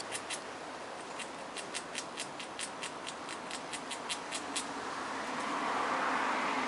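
Gray squirrel gnawing on a piece of fruit: a run of sharp, irregular clicks, two or three a second, that stop about four and a half seconds in. A broad rush of noise builds and grows louder toward the end.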